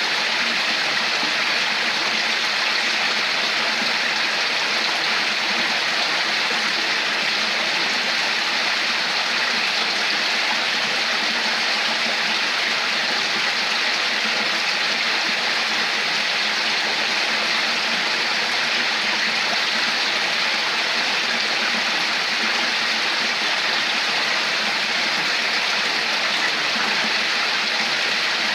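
Water flowing steadily over rocks in a stream, a constant even rushing and babbling.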